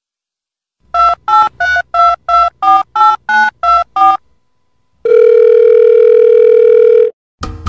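Telephone keypad dialling tones: about eleven short two-note beeps, one after another, as a number is keyed in. Then a steady telephone line tone that lasts about two seconds and cuts off.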